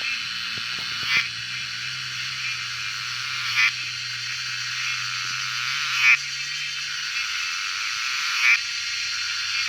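A frog calling in short pulsed croaks, four times about two and a half seconds apart, over a steady high-pitched chorus.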